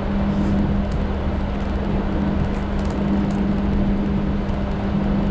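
2019 Ford F-150 Lariat driving slowly on a dirt and gravel trail: steady engine and tyre noise with a constant low hum.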